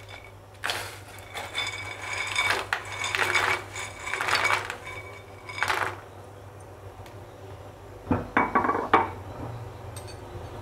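Utensils clinking and scraping against a steel pan as dry soya chunks are tipped into boiling water and stirred. The clatter comes in scattered bursts, pauses, then returns in a short cluster near the end.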